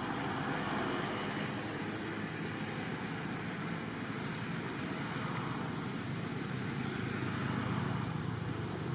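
Steady outdoor ambient noise, an even rumbling hiss like distant traffic, with a few faint high chirps near the end.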